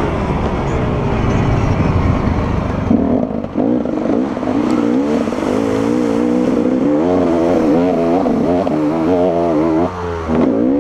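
Enduro motorcycle engine heard from on the bike, revving up and down as the rider works the throttle, with brief drops in revs about three and a half and ten seconds in.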